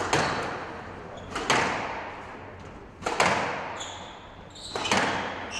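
Squash ball being struck back and forth in a rally: four sharp cracks about a second and a half apart, each ringing off in the court's echo. Short high squeaks, like shoes on the court floor, come between the last two.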